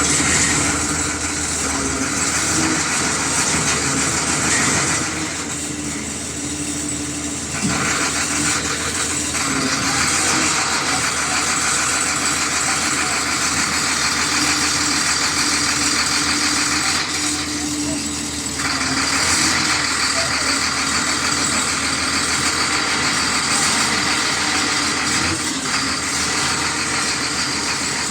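A vehicle engine running steadily, with people talking over it.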